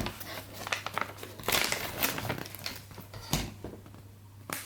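Toy packaging being handled and crinkled, with irregular crackling and scattered sharp clicks and knocks.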